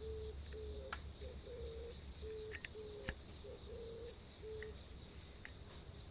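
Oriental turtle dove cooing: a run of low coos in short phrases that stops about four and a half seconds in. Insects trill steadily and high underneath, and there is a sharp click about three seconds in.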